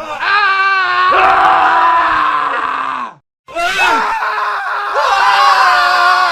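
Men screaming, one scream after another: the first wavers and then trails off falling in pitch, and after a brief silent gap about three seconds in, another long scream begins.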